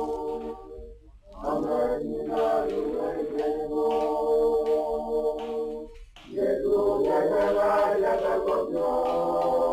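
Choir singing in long held phrases, breaking off briefly about a second in and again about six seconds in.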